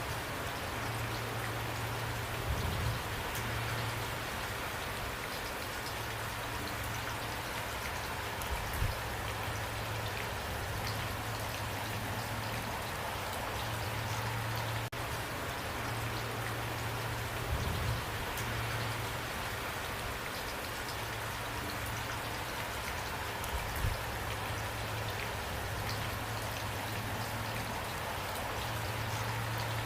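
Steady rain falling, an even hiss with individual drops ticking through it. Underneath runs a low steady hum, with four brief low thumps spread across the stretch.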